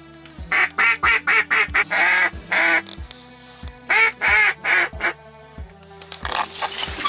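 Duck quacking in two quick runs of short, loud quacks, over background music with held low notes and a soft beat.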